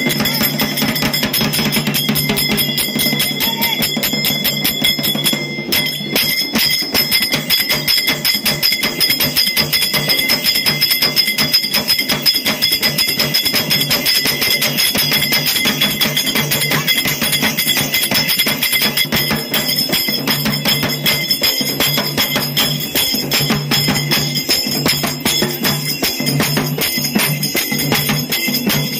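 Festival procession music: fast, steady percussion with bells jingling throughout.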